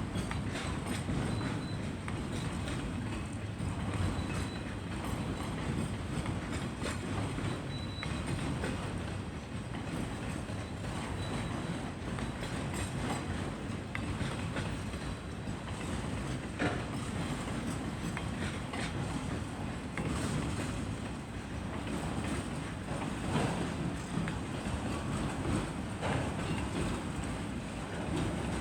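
Canadian National freight train cars rolling steadily past, a continuous low rumble with the wheels clicking over the rail joints at irregular intervals.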